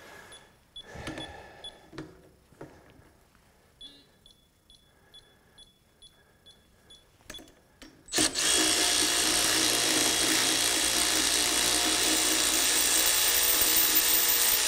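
A power tool runs continuously and steadily for about six and a half seconds. It starts abruptly about eight seconds in and cuts off sharply. Before it there are only faint clicks and a few short electronic beeps.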